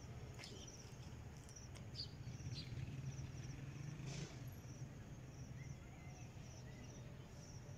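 Faint outdoor ambience with an insect, cricket-like, chirping at an even pace, each chirp a quick high trill, over a steady low hum, with a few faint knocks.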